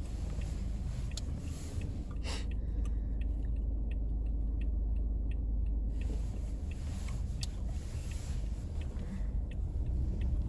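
Steady low rumble of a car's engine and tyres heard from inside the cabin while it creeps along slowly, with a few faint ticks.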